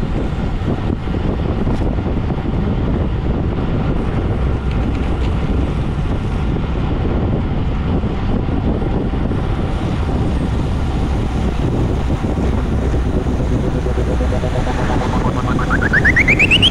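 Wind rushing over the microphone of a moving vehicle, a steady rush over low road and engine rumble. In the last two seconds a tone sweeps quickly upward.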